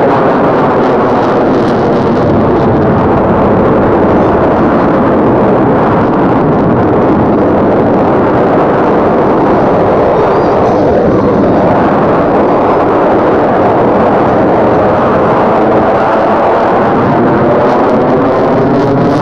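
F-22 Raptor's twin F119 turbofans running in afterburner as the jet manoeuvres overhead: a loud, steady jet roar with a slowly sweeping, phasing quality.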